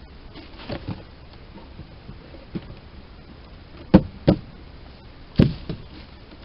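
A series of short knocks and thumps, as of wooden boxes and parts being handled. The loudest come as a pair about four seconds in, with another about a second and a half later.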